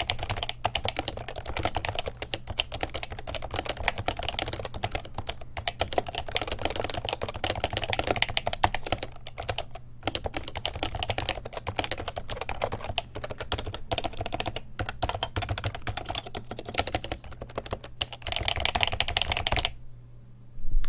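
Continuous typing on a stock, unlubed HHKB Professional 2 with Topre capacitance switches, giving the dull Topre thock. The board's feet are extended, which has partly cured a rattle from it flexing and rocking on the table. The typing stops shortly before the end.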